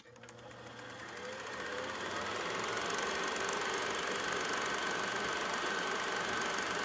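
A steady mechanical whirr fades in over about two seconds and then runs on evenly, with a faint steady high tone through it.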